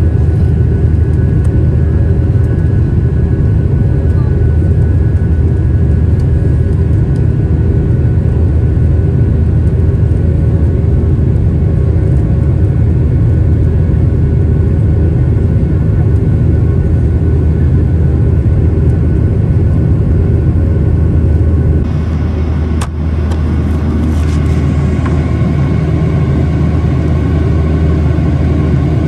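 Cabin noise of a Boeing 737-800 in flight, heard at a window seat over the wing: the CFM56-7B engines and airflow make a loud, steady low rumble with faint steady tones above it. About 22 seconds in the sound drops a little and shifts, with a sharp click, and new higher steady tones come in.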